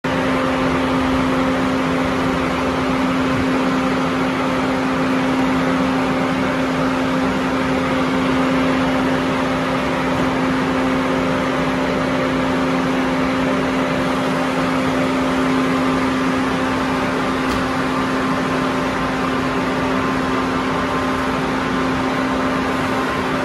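Steady droning hum of a stationary Kaohsiung MRT metro train's air-conditioning and auxiliary equipment, a low tone held over an even rush of air noise.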